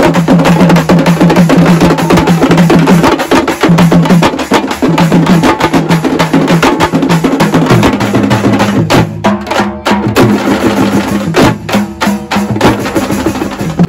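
Loud, fast devotional drumming from a live festival band, with a repeating low note underneath. About nine seconds in, the drumming thins into separate, spaced beats.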